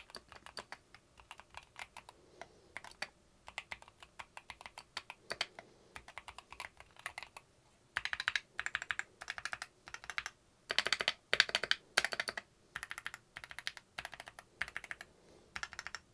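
Typing on a Keychron Q1 HE keyboard with Gateron double-rail magnetic Nebula (Hall effect) switches. It starts as separate keystrokes, then about halfway through turns to quick bursts of fast typing. The keys sound dampened and not too loud.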